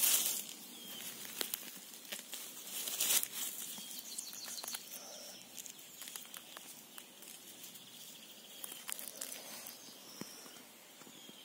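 Rustling and crackling of leaf litter and grass as a mushroom is picked by hand from the forest floor, with two louder bursts at the start and about three seconds in, then softer rustles.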